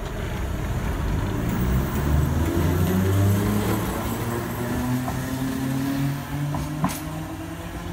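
Island Line Class 483 electric train, ex-London Underground 1938 Tube Stock, pulling away from the platform. Its traction motors whine and rise steadily in pitch as it gathers speed over a rumble of wheels on rail, with one sharp click near the end.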